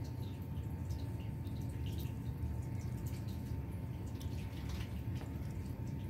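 Turkish Van cat licking its paw to wash its face: small, irregular wet tongue clicks, close up, over a steady low rumble.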